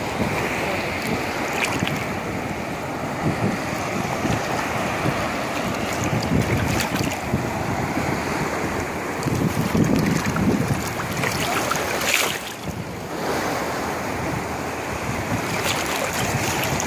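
Shallow sea water washing and lapping around a wading person, with wind buffeting the microphone and water splashing off a gill net as it is hauled up out of the sea.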